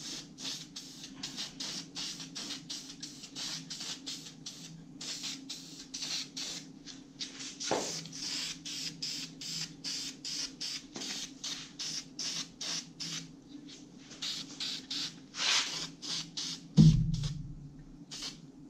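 Aerosol spray paint can hissing in quick short bursts, about three or four a second, over a steady low hum. A thump sounds near the end.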